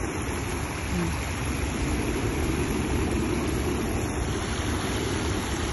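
Steady rushing noise that holds an even level throughout, with no distinct events.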